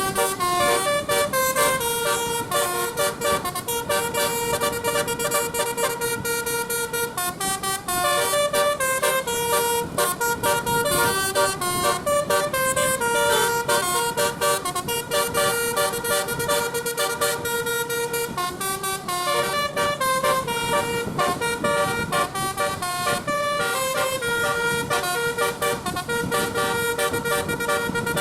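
Indonesian 'telolet basuri' bus horn, a set of roof-mounted air-horn trumpets, playing a continuous tune in quick, stepping notes.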